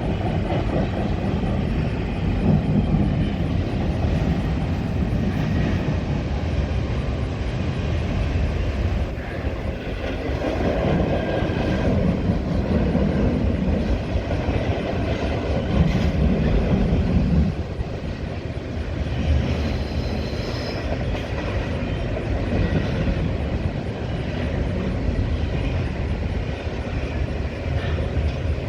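Norfolk Southern double-stack freight train rolling past, its cars' steel wheels rumbling and clattering steadily on the rails.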